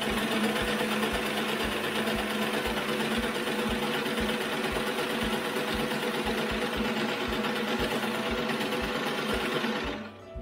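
1948 Singer 15-90 electric sewing machine running steadily at speed, sewing a straight stitch through fabric. It stops suddenly about ten seconds in.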